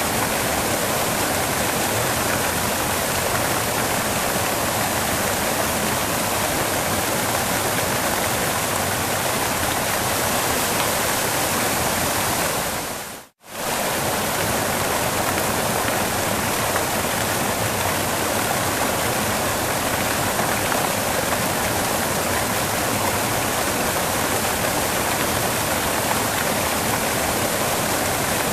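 Waterfall: a steady, even rush of falling water, briefly fading almost to silence and straight back up about halfway through.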